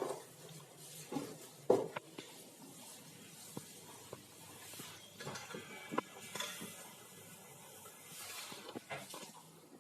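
Scattered light clicks and knocks of things being handled, over a faint steady hiss and low hum.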